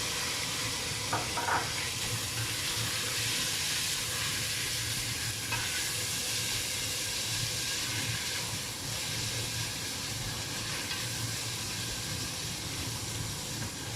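Onion, ginger-garlic and sliced-tomato masala sizzling steadily in hot oil in a pan.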